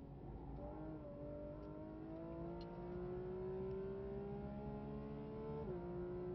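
Porsche GT3 RS's naturally aspirated flat-six under hard acceleration, heard from inside the cabin: the engine note rises steadily, then drops suddenly about five and a half seconds in with a quick upshift and climbs again.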